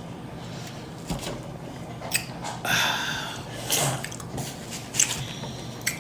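Person chewing food with loud open-mouth smacking: several short, sharp wet smacks spread through, with a longer squelching bite about halfway.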